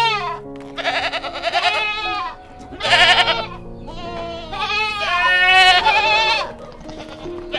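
A series of wavering, bleating calls from goats or sheep, repeated several times, over steady background music.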